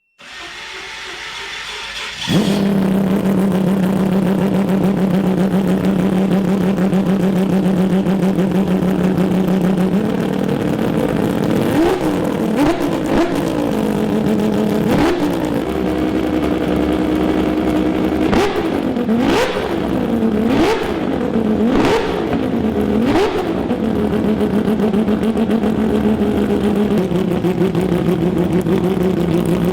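Six-rotor rotary engine cranking, catching about two seconds in and idling steadily, then blipped again and again, the revs rising and falling quickly, with sharp pops at several of the blips.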